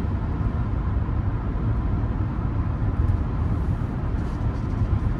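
Steady interior noise of a 1995 Mercedes-Benz E320 (W124) cruising at about 60 mph on cruise control: a low road and tyre rumble with the engine's hum underneath, heard from inside the cabin.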